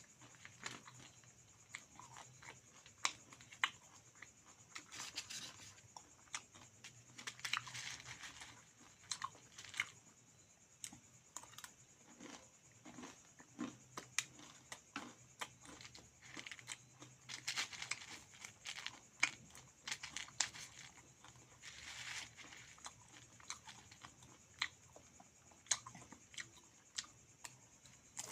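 A person eating close to the microphone: chewing and crunching mouthfuls of beaten rice (chiura) and meat. The sound is a steady run of irregular sharp clicks and short crunchy bursts.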